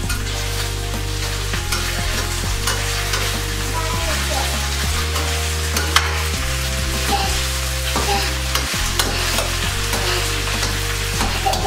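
Diced potatoes and onions sizzling as they fry in a stainless steel sauté pan, stirred with a utensil that scrapes and clicks against the pan now and then. Low, steady notes of background music run underneath.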